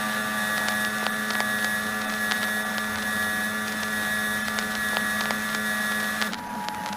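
Emergency alert system alarm tone: a steady electronic drone of several held pitches, low and high together, with light crackling clicks. About six seconds in it switches to a different held tone.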